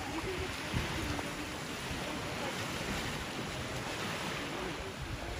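Small waves washing steadily onto a gravel shore, with wind rumbling on the microphone in gusts.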